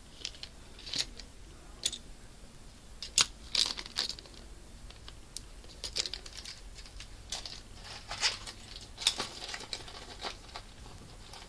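Scattered light rustles and small clicks of hands handling knitting needles and yarn close to the microphone.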